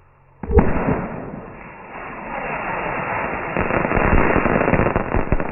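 Fireworks going off: a sudden loud bang about half a second in, then a dense crackle of many rapid small pops that swells again toward the end.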